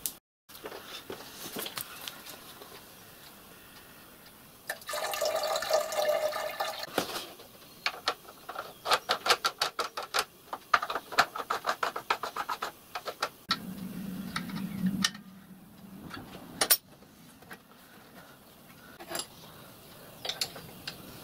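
Liquid poured from a plastic bottle into the filler of a model steam locomotive's side tank. It runs in a steady stream for a couple of seconds, then glugs in quick spurts. A short low hum and a sharp click follow.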